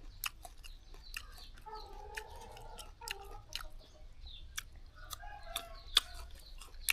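Chickens clucking close by, in two stretches of calls, over close-up chewing with many sharp crunchy clicks of biting into fresh young jackfruit.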